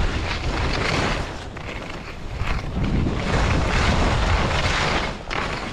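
Wind rushing over the microphone together with the hiss of skis running on snow during a descent. The noise swells and eases twice, loud for the first second and a half and again from about three seconds to near the end.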